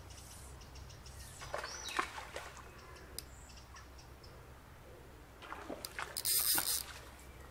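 A hooked trout splashing at the surface as it is drawn in to the bank, a short burst of splashing about six seconds in. A bird calls briefly about two seconds in.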